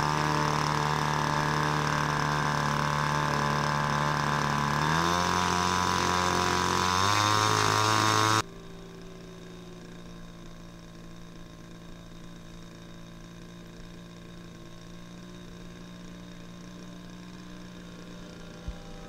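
Small engine of a radio-controlled model autogyro idling close by, its speed dropping and then rising again about five and seven seconds in. About eight seconds in the sound cuts abruptly to the same engine idling more quietly and farther off, with a single click near the end.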